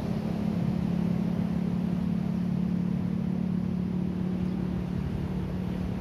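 Ocean surf washing in over shore rocks, with a steady low engine drone from an unseen motor over it that fades near the end.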